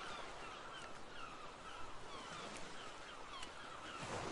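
Faint chorus of many short, falling chirping calls over a steady hiss, cutting off abruptly near the end.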